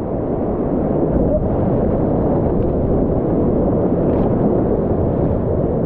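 Whitewater rapid rushing loudly and steadily close to a kayak-mounted action camera, with water washing over the camera as the boat sits in the foaming hole.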